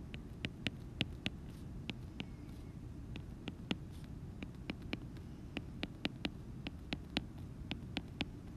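Stylus tip clicking on an iPad's glass screen while tick marks and numbers are written: sharp, irregular taps, about three a second, over a low steady hum.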